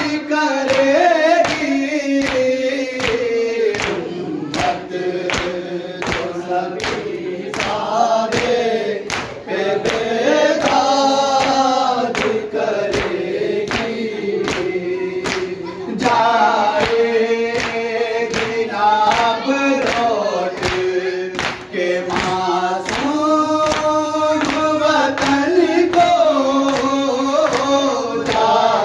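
Group of male voices chanting a noha (Shia mourning lament) together, over a steady beat of chest-beating (matam) slaps, about three every two seconds.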